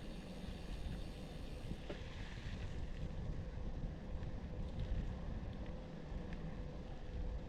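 Wind rumbling on the microphone over a steady hiss, with a faint constant hum.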